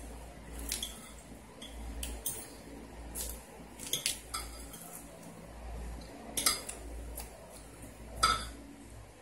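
Metal fork clinking and scraping on a plate of rice: a scattering of short, sharp clinks, the loudest about eight seconds in.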